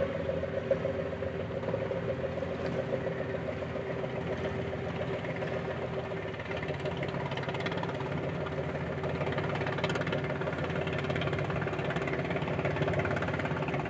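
The ship KL Laksamana Malahayati's diesel engines running at low speed as she pulls away from the dock: a steady engine drone with a fast, even pulse underneath, growing slightly louder near the end.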